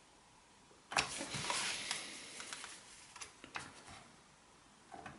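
Faint handling noise: rustling from gloved hands and probe leads, then a few small clicks as multimeter probe tips are pressed onto the heating element terminals of an electric shower's heater can.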